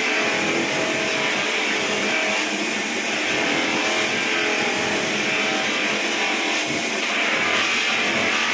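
Guitar background music over the steady noise of an electric buffing machine polishing a cricket bat on its cloth wheels.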